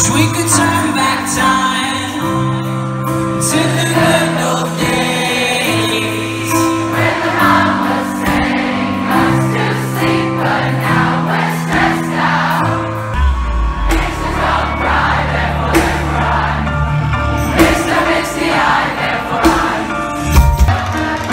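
Concert crowd singing along together over a live band's held keyboard chords; a deep bass comes in about halfway through.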